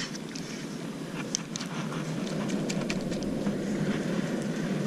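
A cast net being hauled up out of the water, with water dripping and splashing in many short sharp taps, thickest in the middle, over a steady low rumble.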